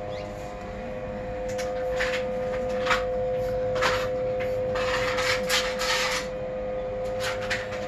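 A series of short rubbing and scraping sounds, thickest about five to six seconds in, over a steady hum.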